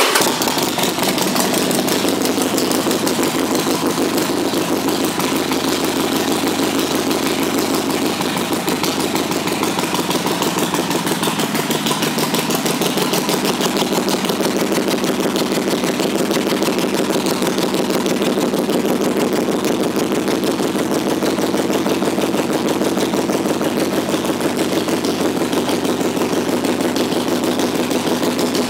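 2006 Harley-Davidson XL1200C Sportster's 1200 cc V-twin engine, fitted with aftermarket pipes, catches and then idles steadily with an even, loping pulse.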